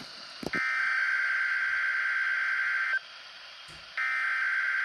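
NOAA Weather Radio SAME digital alert header for a Required Weekly Test: a buzzy data tone burst of about two and a half seconds, a second's pause, then the next repeat of the header starting about four seconds in.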